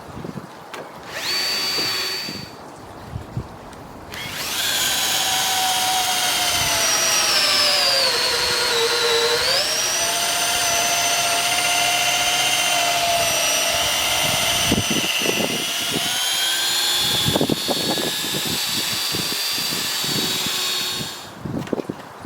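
Power drill running: a short burst about a second in, then a long steady run from about four seconds in until near the end, its pitch dropping for a couple of seconds as the motor slows under load and then climbing back. A few knocks near the end.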